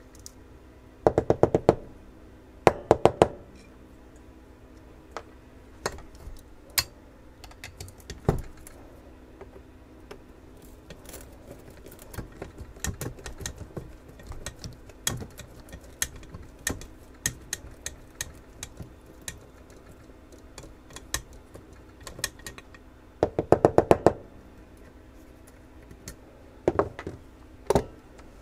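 Screwdrivers working small machine screws and nuts out of a metal power-supply chassis: four short runs of rapid, even clicking, with scattered single clicks of metal between them.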